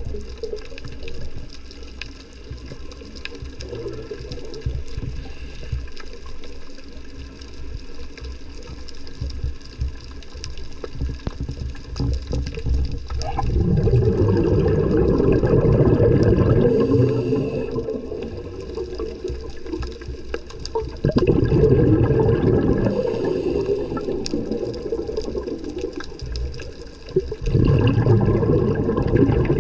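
Underwater, a diver's exhaled breath bubbling out of a scuba regulator in three long surges in the second half, between quieter stretches of low underwater rumble with faint crackling clicks.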